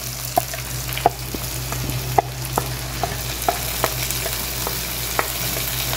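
Chopped onions sizzling in hot oil in a frying pan as a wooden spatula stirs in ginger-garlic paste, the spatula knocking against the pan in sharp taps about twice a second.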